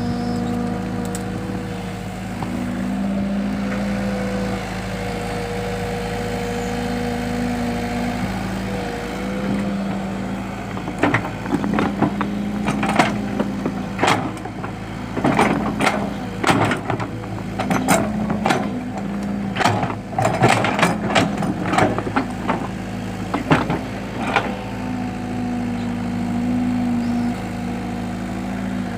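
Excavator's diesel engine running steadily. From about 11 to 24 seconds in, a run of sharp knocks and clanks sounds over it.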